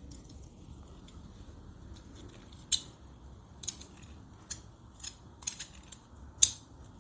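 Scattered sharp metallic clicks and ticks as a stainless steel extension wand is twisted into the brass threaded fitting of a pressure-washer undercarriage cleaner; about seven clicks, starting a little under 3 s in, the loudest near the end.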